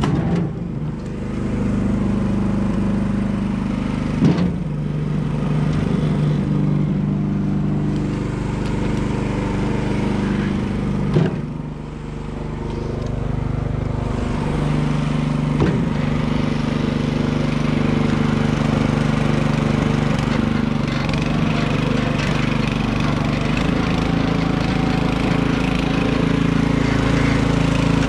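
A small engine running steadily at a fairly even speed, with a few sharp knocks of wood or equipment.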